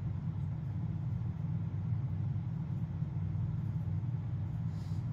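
A steady low rumble, even in level throughout.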